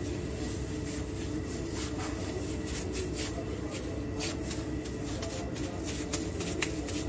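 Plastic-gloved hands scooping and pressing raw beef-mince kebab mixture into patties: plastic gloves crinkling, with soft squishes and pats that come irregularly from about two seconds in, over a steady low hum.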